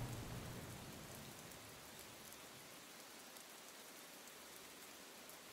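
Faint, steady rain falling on a hard wet surface, with scattered tiny ticks of individual drops.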